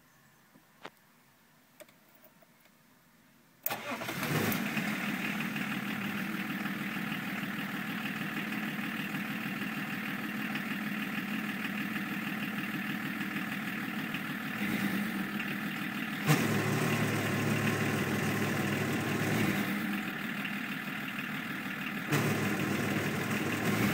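BMW 325 tds 2.5-litre straight-six turbodiesel started after a few faint clicks: it catches abruptly about three and a half seconds in and settles into a steady idle. Its level steps up and back down a few times in the second half.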